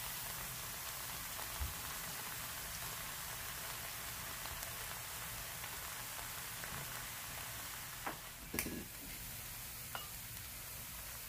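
Steady soft sizzling from a hot nonstick pan as parboiled basmati rice is tipped in on top of the sauce, with a few light knocks in the last few seconds.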